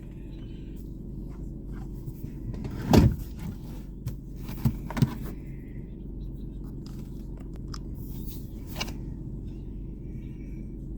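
Steady low mechanical hum like an idling engine, with a loud thump about three seconds in, two sharp knocks soon after, and a few faint high chirps.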